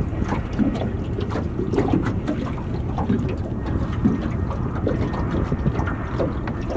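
Wind buffeting the microphone over small waves lapping against a boat's hull, with scattered light knocks.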